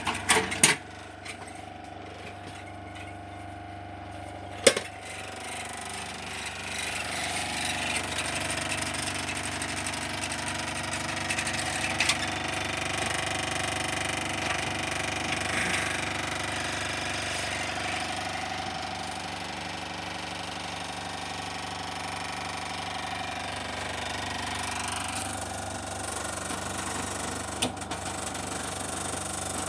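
Soviet Dnepr refrigerator's compressor running with a steady mechanical hum and vibration. There are a few sharp clicks within the first second and one near five seconds in, and the running grows louder from about six seconds in.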